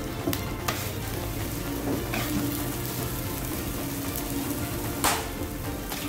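Roti canai with eggs frying on a flat griddle, a steady sizzle, with a metal scraper spatula scraping and tapping the griddle a few times; the loudest scrape comes about five seconds in.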